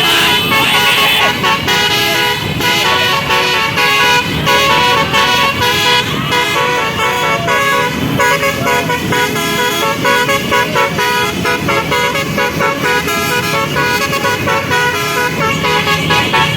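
Telolet basuri melody horn on a vehicle playing a long tune of quickly changing notes, over low road noise.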